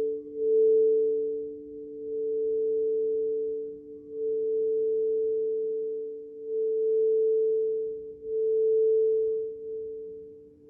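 Crystal singing bowls ringing in two steady pitches, the higher one swelling and fading about five times.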